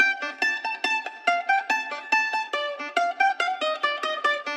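Background music: a plucked-string melody, mandolin-like, with quick notes picked several times a second.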